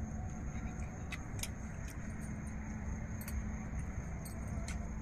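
A steady low background rumble with a faint high whine, and about half a dozen faint light clicks from steel plates as people eat from them by hand.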